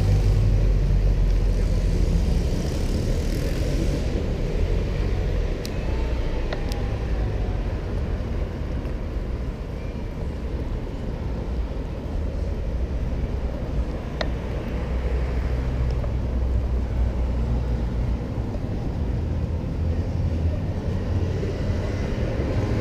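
City street ambience: a steady low rumble of traffic, with a few faint clicks.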